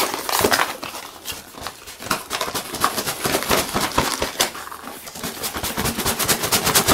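Cardboard box and white packing paper rustling and crinkling as a boxed model is pulled from a shipping carton and handled, with scrapes and taps; a quick run of crackling near the end.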